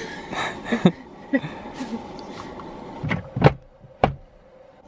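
A woman laughing in a few short laughs, then several sharp loud sounds about three seconds in.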